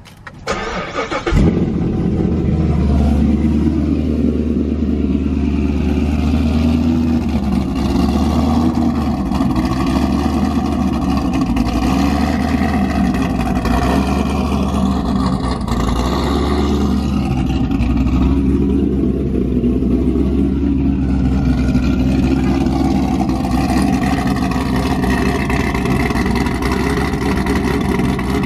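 A C7 Corvette Z06's supercharged 6.2-litre LT4 V8 cranks and fires about a second in, then idles steadily and loudly. The idle has the choppy lope of a freshly installed aftermarket camshaft, running before the engine has been tuned for it.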